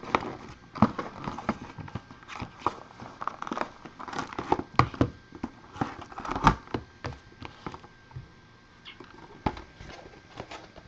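Trading-card pack wrappers crinkling and cards being handled as packs are opened: an irregular run of sharp crackles and clicks that thins out after about eight seconds.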